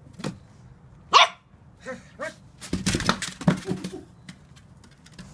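Toy Manchester Terrier puppy barking: one sharp, high bark about a second in, a couple of shorter yaps after it, then a busier run of short noisy sounds around three seconds in.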